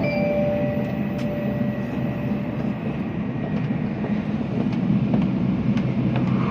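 Steady running rumble inside a shinkansen passenger car, with the last note of the onboard announcement chime dying away over the first couple of seconds.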